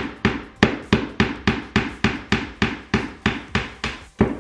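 Steel claw hammer driving a nail into a wall: a steady run of about fourteen strikes, roughly three a second, with a louder final blow just before they stop.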